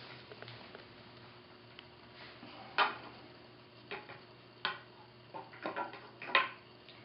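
Cord rubbing and creaking against a bar as a friction hitch is pulled tight by hand, in half a dozen short scrapes and clicks.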